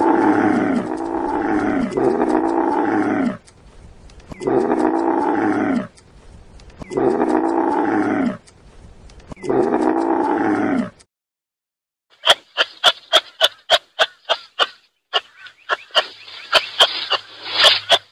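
A large animal's deep roar-like calls, about five long calls with pitch lines bending downward. After a short silence partway through, a different animal gives a quick run of short, sharp calls, about three a second.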